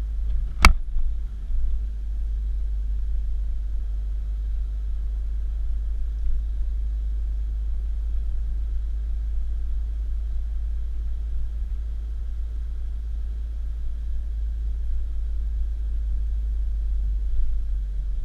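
A car driving: a steady low road rumble, with one sharp click under a second in.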